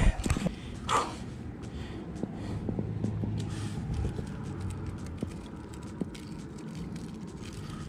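Handling noise as a caught red drum is held down on wet, rocky ground and unhooked: two loud knocks near the start, then scattered small clicks and scrapes over a low rumble.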